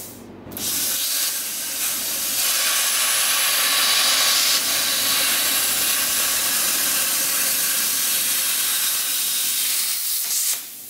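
Plasma cutter hissing steadily as it cuts through car-body sheet metal. The arc cuts out briefly at the start, then runs again until it stops near the end.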